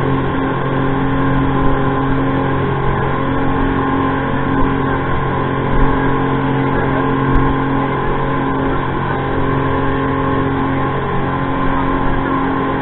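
Speedboat running at speed: a steady engine drone under the rush of water and spray along the hull, with a few small bumps.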